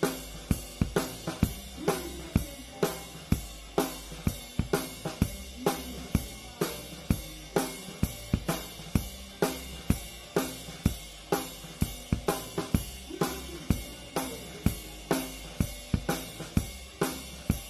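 Drum kit played live in a steady beat, with the snare and cymbal strikes loudest and the rest of the band fainter behind.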